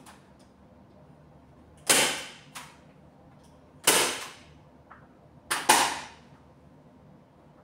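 Hand staple gun firing, stapling fabric to a bed frame: loud sharp snaps about two seconds apart, the last two in quick succession, each ringing briefly.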